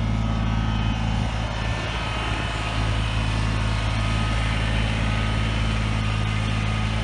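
Kubota BX23S compact tractor's three-cylinder diesel engine running at a steady speed while its front loader carries a log.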